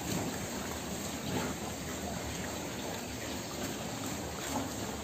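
Steady hiss of water spraying in a pig pen, used to cool and wash the pigs.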